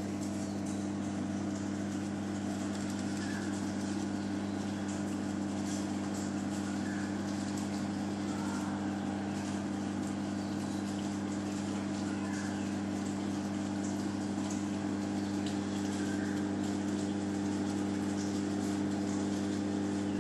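Reef aquarium pumps running: a steady low electrical hum over a faint even hiss of moving water, with a few small ticks.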